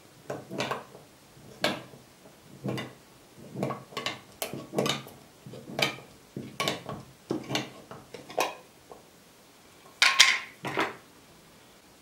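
Hand-held can opener cutting around the tinplate lid of a glass jar: a series of short, sharp metal-on-metal scraping strokes, roughly one or two a second. A louder, brighter metallic clatter comes about ten seconds in.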